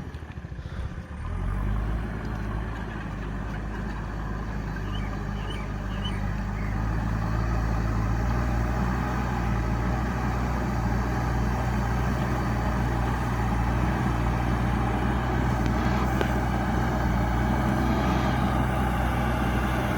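JCB backhoe loader's diesel engine running steadily under working load. It picks up about a second and a half in and runs a little harder from about seven seconds on.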